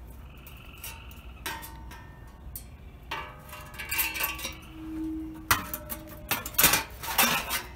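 Clinks and knocks of the generator's thin sheet-metal muffler and its rusted, broken bracket being handled and moved. Some clinks ring briefly, and the knocks come louder and closer together near the end.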